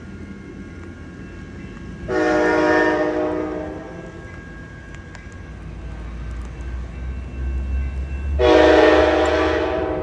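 Sounder commuter train horn blowing two blasts, each a chord of several notes, the second a few seconds after the first and longer. A low rumble grows under the second blast as the train approaches.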